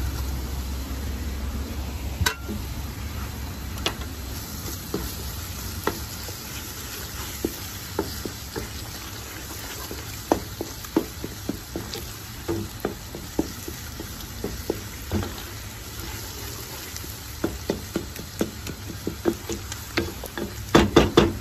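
Chopped onions with ginger and garlic sizzling in oil in a metal pan while a wooden spoon stirs them, scraping and knocking against the pan. Near the end there is a quick run of louder knocks.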